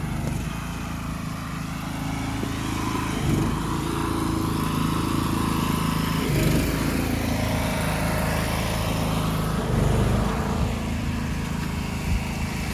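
Small gasoline engine of a pressure washer running steadily.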